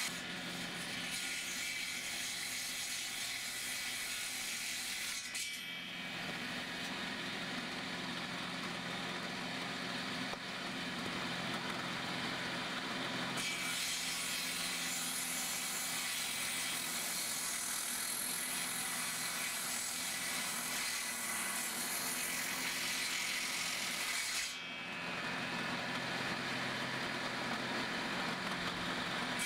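Soviet-era electric circular saw running and cutting through hardwood firewood logs (oak, hornbeam and ash): a steady motor hum under the harsh noise of the blade in the wood. The sound briefly drops twice.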